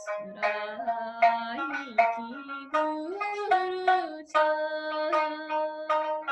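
A woman singing to her own sanshin, the Okinawan three-stringed lute. Sharp plucked notes sound under a voice that slides between pitches.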